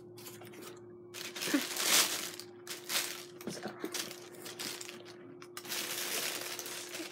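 Gold tissue paper crinkling and rustling in irregular bursts as it is pulled aside and handled in a shipping box.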